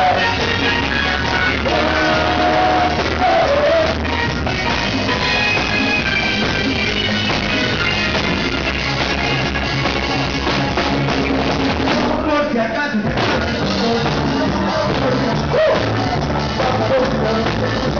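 Live band playing loud rock-style music with singing and some shouting, over a steady beat from bass and drums. The bass drops out briefly about two-thirds of the way through.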